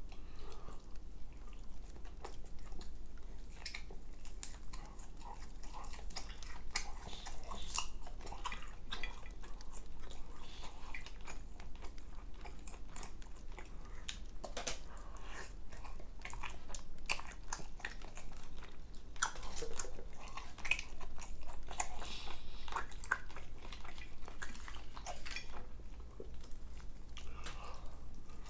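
A person chewing and biting into fried chicken close to the microphone, with many short, sharp crunchy clicks and mouth sounds.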